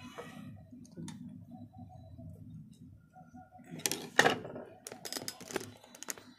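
A few sharp metallic clicks and light rattles, loudest about four seconds in with more near five and a half seconds, from hands handling a rolled-hem (pico) presser foot and screwdriver on an old sewing machine.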